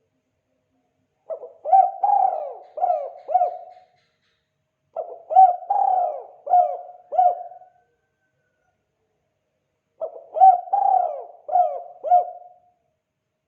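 Spotted dove (tekukur) cooing the 'kuk 2' call type: three phrases, each a run of several low, rolling coos, repeated about every four to five seconds.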